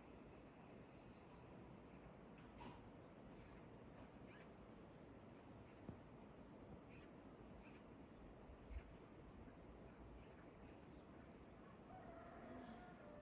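Faint, steady high-pitched chorus of crickets, with a few faint short bird chirps scattered through and a couple of soft knocks near the middle.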